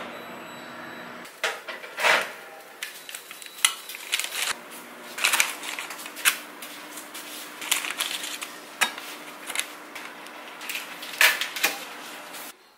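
Kitchen clatter: dishes and utensils knocking and clinking irregularly over a faint steady hum. It cuts off suddenly near the end.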